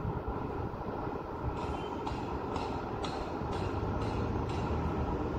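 Steady low rumble of city road traffic. In the middle, a run of about seven evenly spaced hissing pulses, about two a second, sounds over it.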